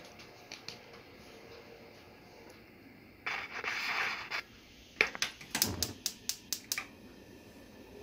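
Kitchen handling sounds: a brief scraping rustle, then a quick run of sharp clicks and taps with one dull thud among them.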